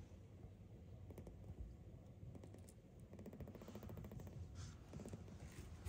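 Near silence: room tone with faint scattered clicks.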